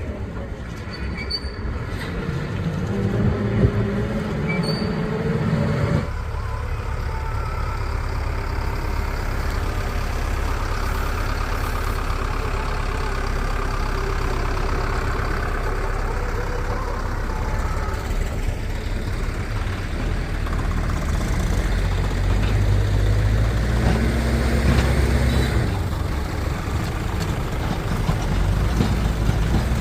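Heavy diesel engine of a tractor or loader running, its speed changing a few times.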